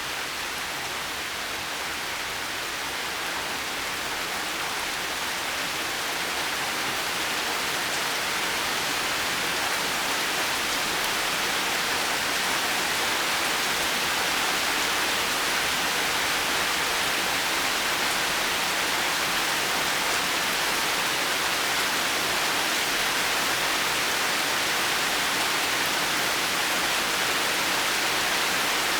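Steady rain falling as an even hiss, growing a little louder over the first ten seconds and then holding level.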